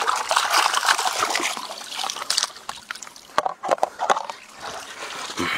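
Water splashing and sloshing as a plastic basin is dipped and rinsed in shallow pond water, with a few sharp knocks a little past halfway.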